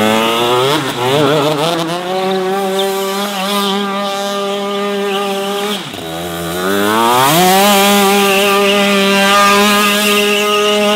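Shifter kart's two-stroke engine revving hard during a drift. The pitch climbs and is held high, drops briefly about six seconds in, then climbs steeply again and stays high.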